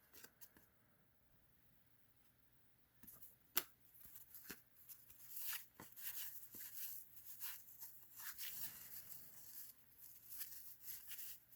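Faint rustling and light clicks of trading cards being handled and slid over one another, starting after about three seconds of near silence, with one sharper tick about three and a half seconds in.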